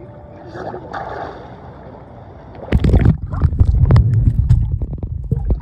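Swimming-pool water heard through a phone microphone held underwater: muffled gurgling at first, then from about three seconds in a loud, rough rumble of splashing water rushing over the microphone, with sharp knocks.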